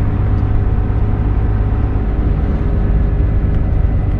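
Hino truck's diesel engine and road noise heard from inside the cab while driving, a steady low drone with no sudden changes.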